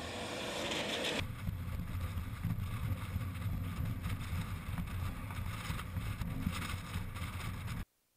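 A Zero XU electric motorcycle riding past close by, a rising hiss of tyres and motor. About a second in this gives way to a strong, fluttering rumble of wind on the microphone as the bike approaches from a distance. The sound cuts off suddenly near the end.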